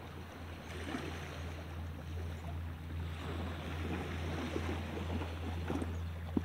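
Small waves lapping at a rocky shoreline over a steady low hum, with scattered faint splashes and scrapes while a snook is reeled in and landed. A single sharp click comes near the end.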